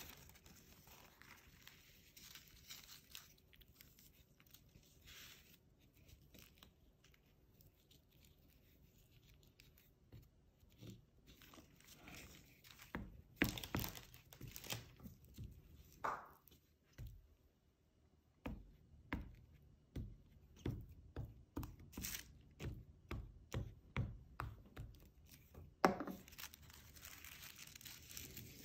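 Tissue paper rustling and crinkling as it is handled and smoothed. About halfway through this gives way to a string of short taps and light knocks, roughly two a second, as the paper is pressed and patted down onto the wooden tray.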